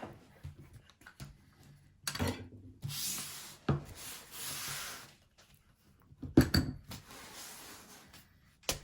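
Handling noises: rustling and rubbing, with a few sharp knocks and clicks.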